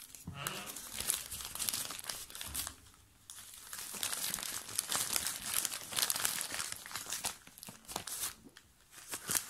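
Plastic courier mailer bag crinkling and tearing as it is opened, in bursts of rustling and crackling with two short quieter pauses.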